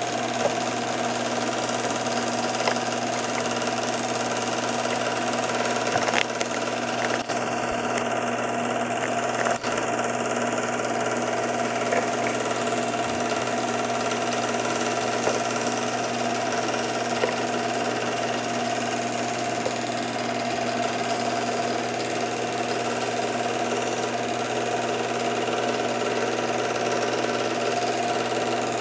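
Film projector running steadily, a constant mechanical whir with a low hum and a few faint clicks.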